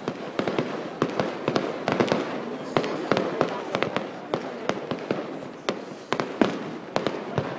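Aerial fireworks shells bursting in a rapid, irregular run of bangs and crackles, with a louder report about six and a half seconds in.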